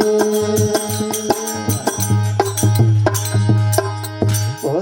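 Instrumental passage of a desi bhajan, without singing: quick, sharp drum strokes over held steady tones.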